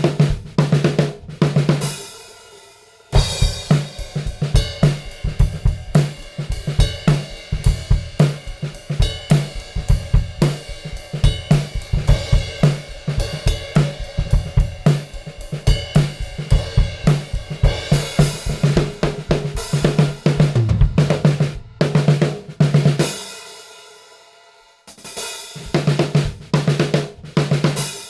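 Funk groove on an acoustic drum kit, with kick, snare, hi-hat and cymbals, recorded through a Quad Eight 7501 mic preamp with its EQ444 equaliser applied. The playing breaks off briefly near the end and starts again, now recorded through a GTP8 preamp.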